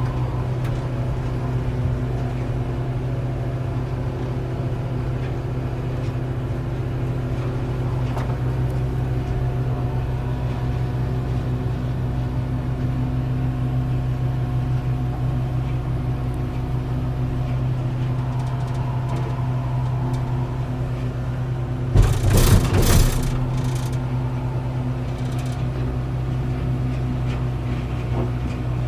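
Komatsu BR-120T mobile crusher and its feeding machinery running at work: a deep, steady rumble of engine and rotating crushing mechanism, with a brief loud clatter about two-thirds of the way through.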